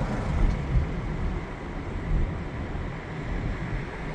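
A car moving along the road: steady low engine and tyre rumble.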